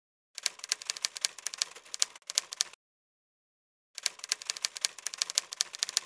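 Typewriter keys clacking in quick runs of keystrokes, two runs of about two seconds each with a pause of about a second between them.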